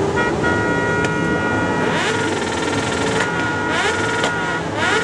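Several vehicle horns sounding together in long held blasts that break off briefly near the end, with engines revving up and down underneath.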